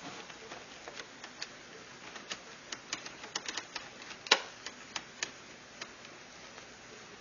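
Small screws and a screwdriver clicking and tapping against a laptop's plastic screen housing as the back plate's screws are fitted: irregular light ticks, with one louder knock about four seconds in.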